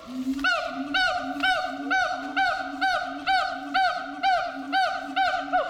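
Siamang call: a fast rhythmic series of short rising-and-falling whoops, about two a second, alternating with a lower pulsing note over a steady held tone.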